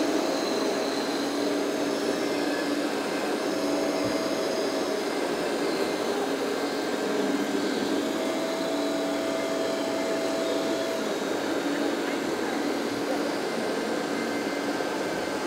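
Hydraulic pump of a scale RC Liebherr 924 wheeled material handler whining steadily as the model works its boom and log grapple, its pitch shifting now and then as the load changes, over the steady din of a crowded exhibition hall.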